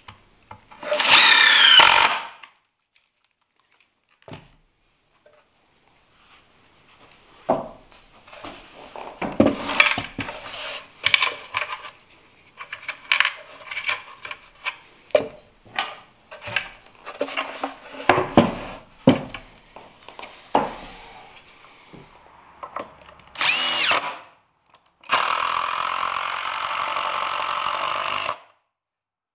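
Cordless drill-driver driving screws into a wooden box: a short run as the motor spins up near the start, another brief run about two-thirds through, and a steady run of about three seconds near the end. Scattered knocks and clatter of wood and hardware being handled fall in between.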